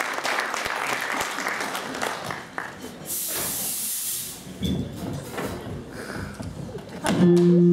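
Audience applause fading out, then a stage fog machine blasting out smoke with a loud hiss for about a second, roughly three seconds in. Near the end a loud steady low tone begins.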